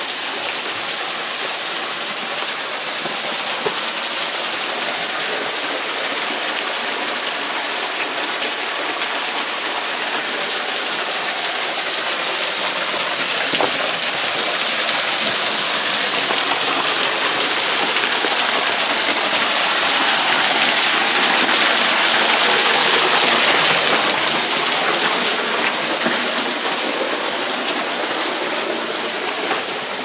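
Waterfall pouring and splashing onto rock, a steady rushing hiss that grows louder past the middle and then eases off a little.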